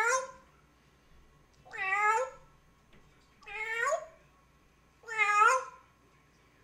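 African grey parrot imitating a cat's meow, four meows in a row, each about half a second long and spaced evenly about every second and a half.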